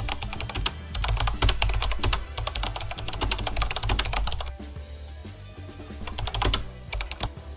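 Keyboard typing sound effect, runs of rapid clicks with a short pause partway through, over background music.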